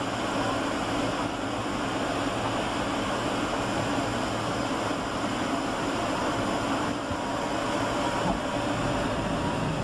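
Steady cabin noise inside a Boeing 757-300 airliner descending on final approach: an even rush of airflow and jet engines, with a faint steady hum.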